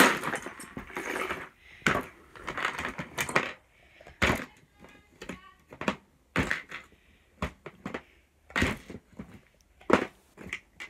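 Loose plastic LEGO bricks clicking and clattering as they are handled and knocked about: a string of sharp, irregular knocks, with rustling handling noise in the first three seconds.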